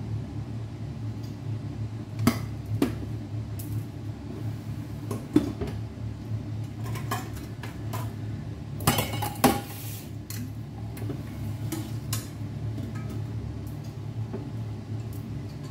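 Cooking utensil clinking and knocking against a pan on the stove, a few sharp clinks spread out with a cluster of louder knocks about nine seconds in, over a steady low hum.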